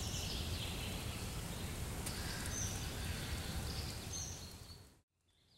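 Outdoor field ambience: a steady low rumble and hiss with a few short, high bird calls, fading out near the end.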